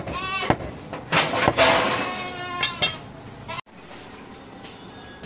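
A butcher's knife chopping goat meat on a wooden stump block: a sharp knock, a second one half a second later, then a couple of seconds of busy knocking and scraping noise with brief pitched calls mixed in. The sound drops abruptly to a quieter background a little after three and a half seconds.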